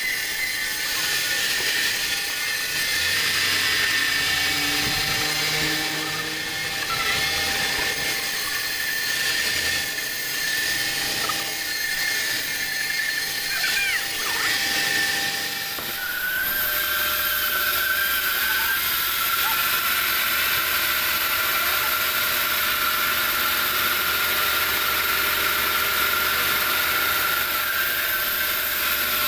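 A sawmill's vertical band saw running and ripping through a large log, a steady high whine over hiss. About halfway through, the whine steps down a little in pitch and holds steady.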